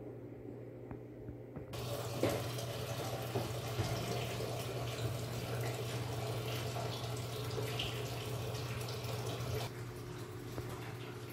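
Water running steadily, with a few light knocks, starting abruptly about two seconds in and cutting off abruptly near the end; a low steady hum runs underneath throughout.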